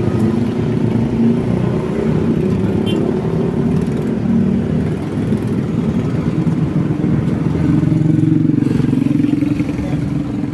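Road traffic: the engines of passing motor vehicles in a continuous low drone, swelling a little about eight seconds in as a vehicle passes close.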